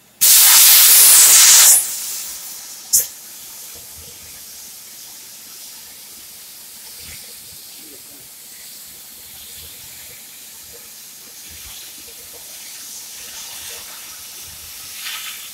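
Gas hissing from a CNC profile-cutting torch: a loud blast lasting about a second and a half, a short sharp hiss about three seconds in, then a steady lower hiss.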